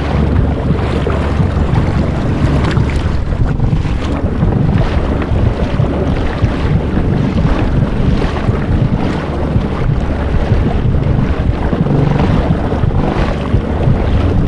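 Heavy wind buffeting the microphone aboard a small inflatable boat at sea, with waves washing against the boat, in a steady, gusting rumble.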